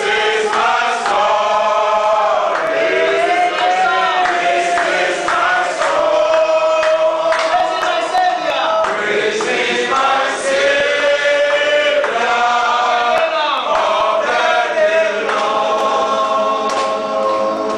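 A group of men's voices singing a worship song together, unaccompanied, with long held notes.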